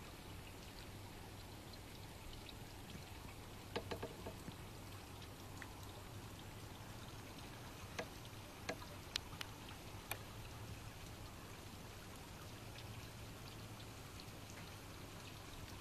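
Steady rain falling during a thunderstorm, an even hiss with a few sharp ticks of drops landing close by, clustered around four seconds in and again between eight and ten seconds in. A low steady hum runs underneath.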